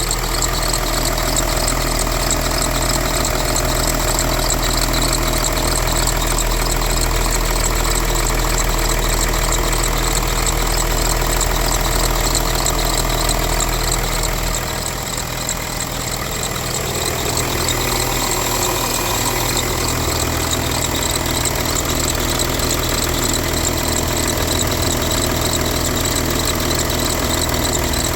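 Volkswagen Touareg 3.0 V6 TDI diesel idling from a cold start, with a rapid ticking noise that the owner places at the top front of the engine, under the valve cover. The low end of the sound shifts about halfway through.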